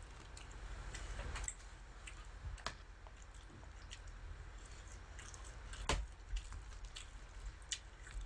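Eating sounds: scattered small clicks of metal chopsticks and the chewing of a pan-fried meatball patty, with one sharper click about six seconds in.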